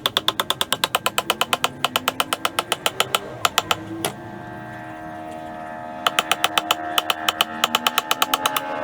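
Lathe running with a steady motor hum and a rapid, even clicking of about ten a second. The clicking stops for about two seconds midway, then resumes.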